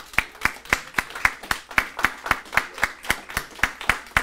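A single person clapping steadily, about four evenly spaced claps a second.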